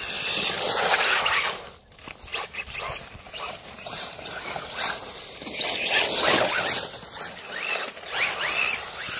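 Electric radio-controlled rally car driving on wet dirt, in uneven bursts: tyres scrabbling over the dirt with the motor whine rising and falling as the throttle comes on and off.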